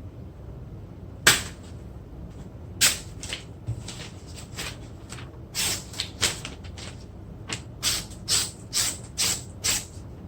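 A Chinese cleaver's blade making short, separate scraping strokes, one or two a second, coming more often after the first few seconds.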